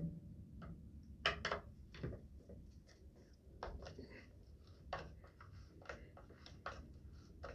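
Faint scattered clicks and taps, about a dozen, as a small tool and loose parts are worked at the buttstock of an Umarex Gauntlet air rifle during disassembly.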